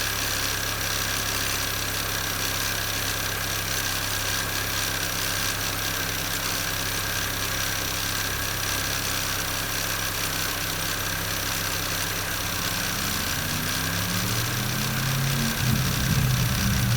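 MINI Cooper S (R53) supercharged 1.6-litre four-cylinder engine idling steadily, with a steady high tone over the engine hum; near the end the revs rise and fall back. The engine is being checked for an abnormal noise.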